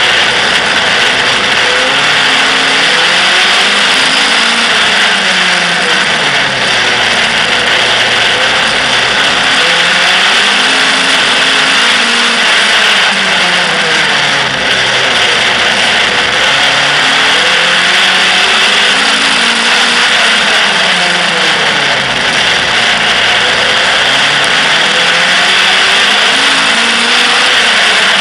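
Outlaw stock car engine heard onboard while racing on a short oval, revving up and then easing off in a steady cycle about every eight seconds, with the pitch climbing along each straight and dropping into the turns. A constant loud rush of noise runs under the engine throughout.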